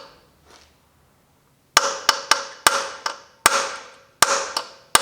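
A hammer striking a socket extension, driving a flathead bit into a seized screw head to shock it loose: about nine sharp metal-on-metal blows, each ringing briefly, starting nearly two seconds in.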